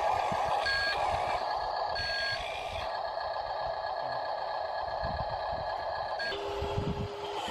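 Electronic beeping of a vehicle's reversing alarm: short beeps about a second apart, then one long held tone that stops near the end, over a steady mechanical noise.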